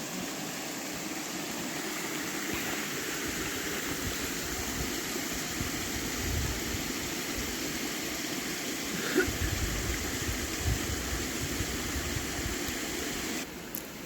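Steady rush of flowing water from a mountain stream or waterfall, with wind buffeting the microphone in low thumps in the second half. The rush drops off abruptly near the end.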